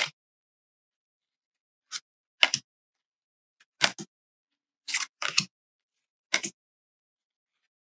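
Glossy oracle cards being handled: about seven short, crisp swishes and flicks of card sliding against card, spaced a second or so apart.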